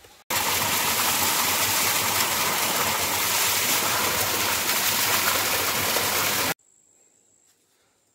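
Spring water pouring from a rock ledge and splashing onto stones below, a loud steady rush. It starts abruptly just after the beginning and cuts off abruptly about six and a half seconds in.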